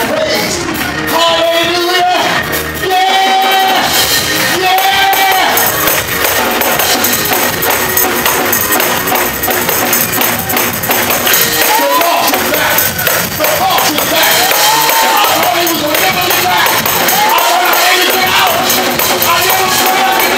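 Loud, lively church music with voices raised over it, singing and calling out.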